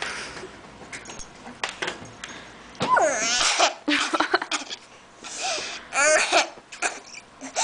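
A young girl laughing and squealing in several loud bursts, the strongest from about three seconds in.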